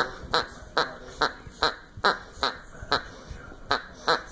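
A squeaky dog toy squeaking over and over as a Newfoundland dog chews it, about two or three squeaks a second, with a short break about three seconds in.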